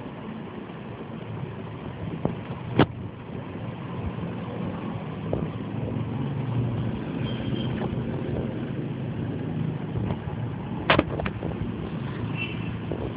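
Steady low rumbling background noise, with a few sharp clicks: two louder ones about three seconds in and near the end, and fainter ones between.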